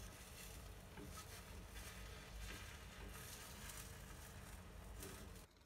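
Faint sizzling of beaten egg cooking in a rectangular tamagoyaki pan, with a few light taps as chopsticks roll the omelette. The hiss drops away near the end.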